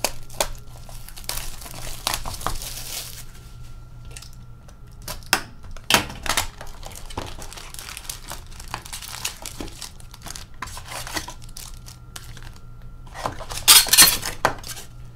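Plastic wrap crinkling and tearing as a sealed hockey card box is unwrapped and opened, then the card packs rustling as they are pulled out, loudest near the end.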